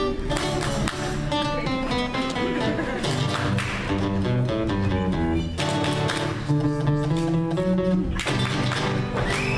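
Music led by guitar, plucked and strummed, moving through quick changing notes.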